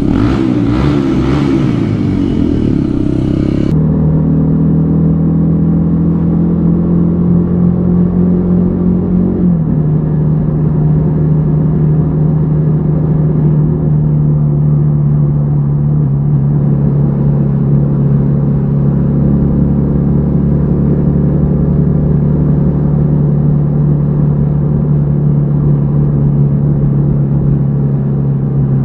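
Yamaha XTZ 150 Crosser S single-cylinder four-stroke engine running under way, heard on-board. The first few seconds waver in pitch with a hiss, then the sound changes abruptly to a steady engine note that drops a little in pitch about ten seconds in and holds there.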